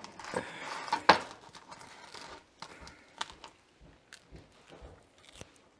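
Crisp crust of a fresh sourdough loaf crackling as a bread knife saws through it, with a sharp knock about a second in. After that come scattered faint crunches and clicks as a piece of the crusty bread is bitten and chewed.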